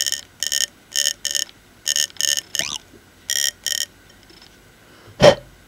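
Electric spark igniter, built from a gas-stove lighter's circuit board and high-voltage coil, buzzing in short bursts about nine times over the first four seconds as it fires sparks inside the combustion chamber. About five seconds in there is a single short, loud sound.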